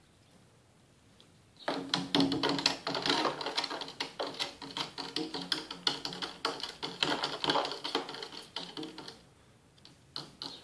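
Metal spoon stirring sugar into water in a clear plastic cup: a fast, busy clinking and scraping against the cup wall that starts about two seconds in and stops around nine seconds, with a couple of separate clicks near the end as the spoon is lifted out.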